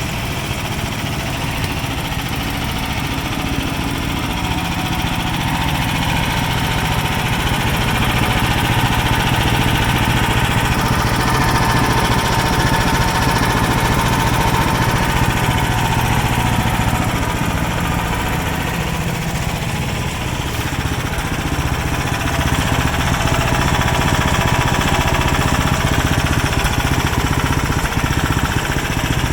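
Ariens Professional snowblower's 420cc single-cylinder engine running steadily with an even low pulse, getting a little louder about seven seconds in, easing off around twenty seconds and picking up again.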